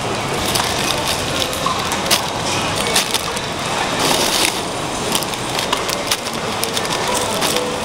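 Continuous crinkling and crackling of plastic bags of cut fruit being handled in a plastic basket resting on crushed ice, with many small sharp crackles throughout.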